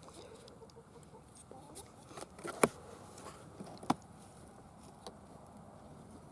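Small clicks and taps from handling and setting snap mouse traps, with two sharper metallic clicks about two and a half and four seconds in.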